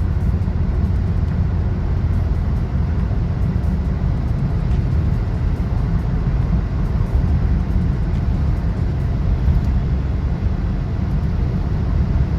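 Loud, steady low rumble from a BMW F-series car, with no clear engine note, cutting off suddenly near the end.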